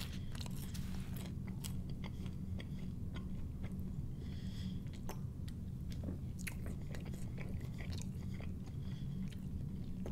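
Close-miked mouth sounds of a man chewing a bite of thin, crispy pizza, with many small wet clicks and crunches over a steady low hum. In the second half he drinks from a plastic soda bottle.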